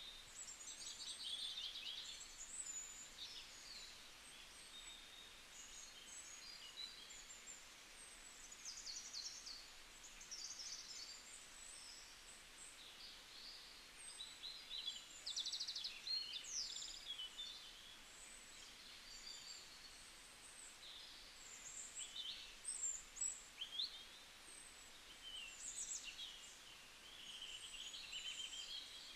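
Birds chirping and trilling faintly: a continual run of short, high calls and quick trills over a faint hiss.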